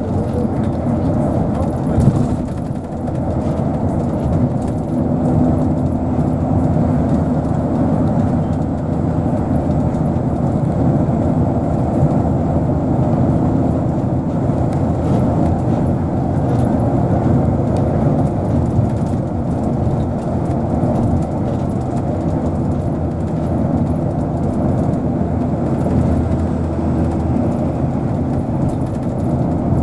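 A car driving at steady speed on a highway, its engine and tyre noise a continuous low rumble, with a brief knock about two seconds in.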